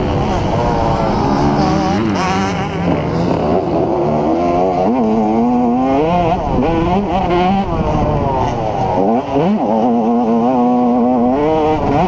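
Yamaha YZ125 two-stroke motocross engine revving hard under load, its pitch climbing and dropping again and again, with a sharp drop and fresh climb about nine seconds in. It is heard from a helmet-mounted camera.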